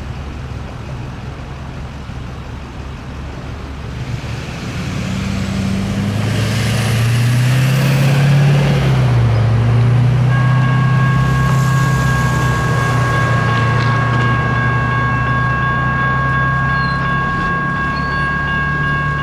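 Traffic at a railroad crossing, with a low engine drone and a vehicle going by about six to nine seconds in. About ten seconds in, the crossing signal's General Signals Type 1 electronic bell starts up and rings steadily as the crossing activates.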